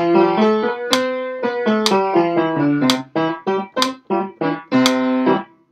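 Piano playing a vocal warm-up: a major scale stepping up and back down over a held bass note, then a detached arpeggio of short separate notes, up and down.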